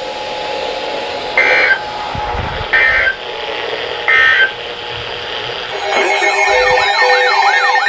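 Three short bursts of Emergency Alert System data tones, the end-of-message code that closes a weather radio warning, about a second and a half apart over radio static. About six seconds in, a rising and falling siren-like wail starts, layered with steady tones.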